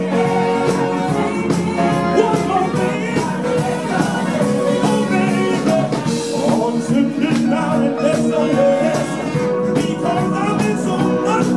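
Live soul band playing in full: saxophones, electric guitar, keyboards and drums, with a male lead singer on a hand-held microphone. It is a Motown and Northern Soul-style number, with long held notes over a steady beat.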